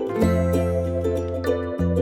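Instrumental background music: plucked notes over a low bass line.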